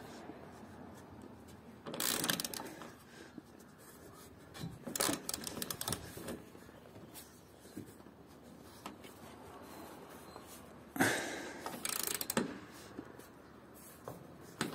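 Socket ratchet clicking in several short runs of quick clicks with pauses between, as roof-rack bracket bolts are done up tight to compress their rubber seals.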